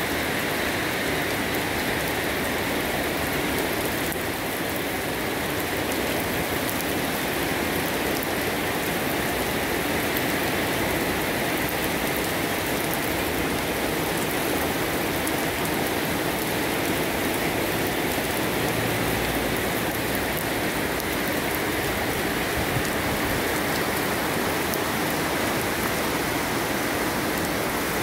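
Steady rain falling on garden plants and a wet deck.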